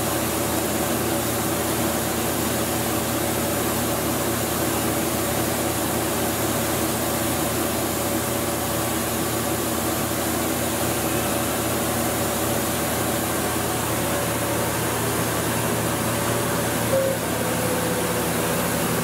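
Steady machine hum of a Walter Helitronic Vision CNC tool grinder and its auxiliary units running through the warm-up program: several steady tones over an even hiss.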